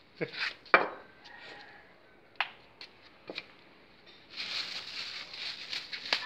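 A few sharp taps and knocks, then from about four seconds in the continuous crinkle and rustle of a black plastic bag being handled and opened.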